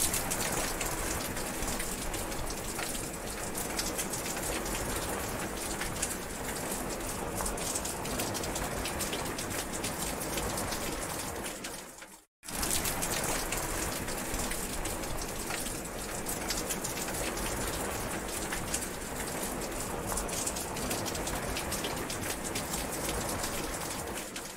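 Steady rain falling, a dense patter of drops. About halfway through it fades out to silence for a moment and comes straight back.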